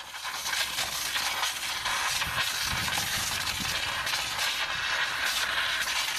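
Hand-held high-pressure water-jetting lance blasting concrete off a slab around exposed rebar (hydrodemolition): a loud, steady hiss of spray, with an uneven low rumble from the jet striking the concrete in the middle.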